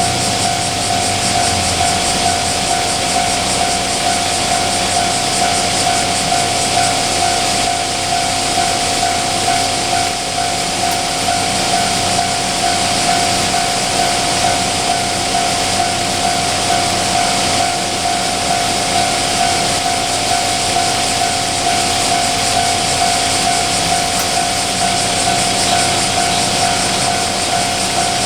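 Japanese railway level-crossing alarm bell ringing continuously with its repeating 'kan-kan' tone, over the noise of a train passing.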